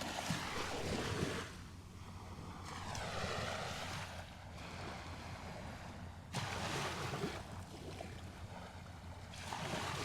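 Small waves breaking and washing up the sand, in repeated swells that build and fade every few seconds, with some wind on the microphone.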